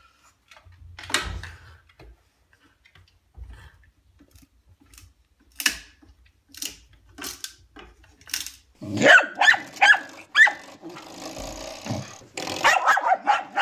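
A dog barking in a quick run of sharp barks starting about nine seconds in, and again near the end. Before that there are only scattered short clicks and knocks.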